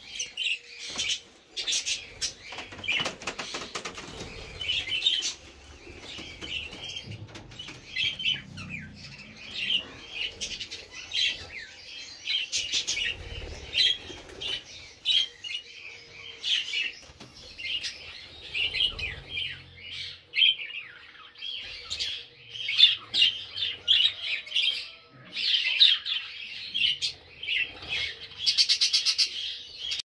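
A flock of budgerigars chattering, with a continual stream of short overlapping chirps and warbles and a fast trill near the end. Occasional wing flaps are mixed in.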